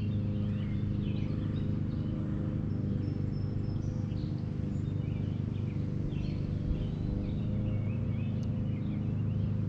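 Small birds chirping in short scattered calls over a steady low motor hum that doesn't change.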